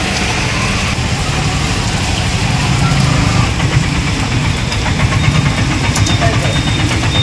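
Motor-vehicle engine running, getting louder about halfway through as an auto-rickshaw comes close and passes over the wet road, with a steady hiss of rain.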